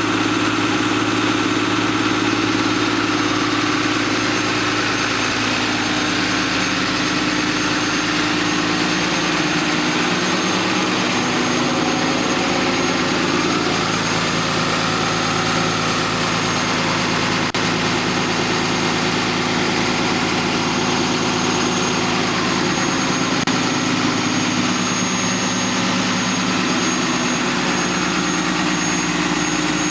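2010 Cummins 6.7 L inline-six turbo-diesel on stock exhaust, idling steadily at its raised cold-start high idle with the exhaust brake engaged to help warm-up. A thin high whistle sits over the engine note.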